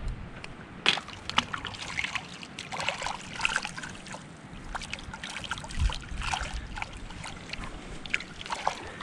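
Shallow water sloshing and splashing at a rocky shore, with a scatter of sharp clicks and crunches from handling on the stones.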